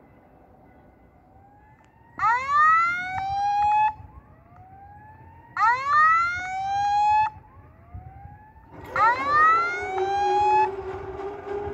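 Railway level-crossing warning sounder going off for an approaching train: three loud rising electronic whoops, each about a second and a half long, roughly three and a half seconds apart. A lower steady hum joins about nine seconds in as the barrier arms start to come down.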